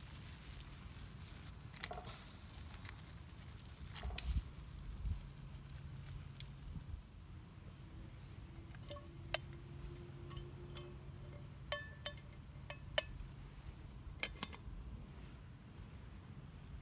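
Camp cookware and utensils being handled: a scattering of sharp clinks and taps, a few of them ringing briefly.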